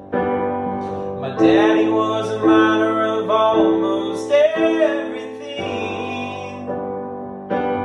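A man singing to his own piano accompaniment. His voice comes in about a second and a half in over steady chords, holds several long, wavering notes, and drops out past the halfway point, leaving the piano alone.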